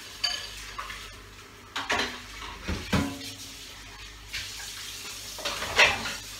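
Washing up at a kitchen sink: dishes and metal utensils clinking and clattering against each other. Several louder clinks that ring briefly come about two, three and six seconds in.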